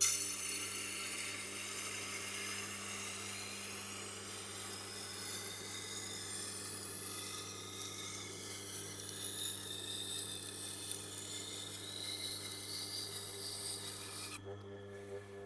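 Knife edge being ground on a Tormek wet grinder's wheel to raise a burr on one side: a steady grinding hiss over the machine's motor hum. Near the end the blade comes off the wheel and the grinding stops while the motor keeps humming.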